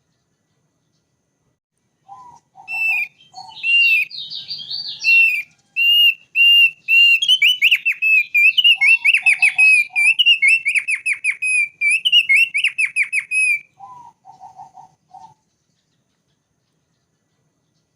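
Thick-billed heleia (opior paruh tebal) singing a fast, varied run of clear whistled notes and trills for about eleven seconds. Short bursts of a few lower notes come just before the song, once in the middle and just after it.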